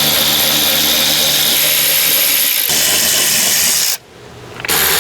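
Power driver with a 10mm socket spinning out the door-panel bolts: a steady whirring run that changes tone partway through, stops about four seconds in, and starts again just before the end.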